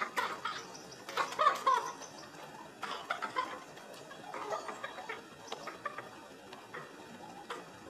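Chickens clucking: short, irregular calls, busiest in the first couple of seconds, then sparser and fainter.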